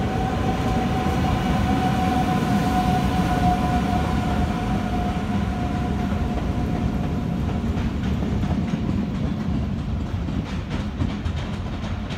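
NS double-deck electric train pulling away: a steady electric whine over a rumble from the wheels, fading as it goes. After that comes a run of clicks as the wheels pass over rail joints.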